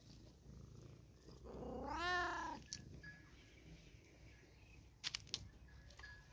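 Long-haired white cat giving one long meow that rises and then falls in pitch, about two seconds in. A few sharp clicks follow near the end.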